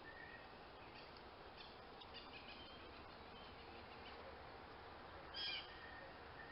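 Faint songbird chirps and short whistled calls over a quiet outdoor background, with one louder, brief call about five seconds in.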